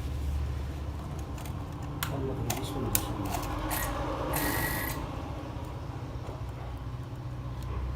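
Refrigeration vacuum pump running with a steady low hum as it evacuates the refrigerator's sealed system, with scattered clicks and knocks of handling and a brief hiss about halfway through.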